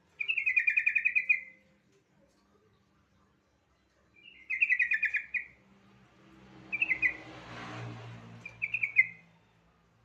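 Yellow-vented bulbul (trucukan) singing: four bubbly, rapidly pulsed phrases, the first two long and the last two short. A soft rushing noise sits under the later phrases.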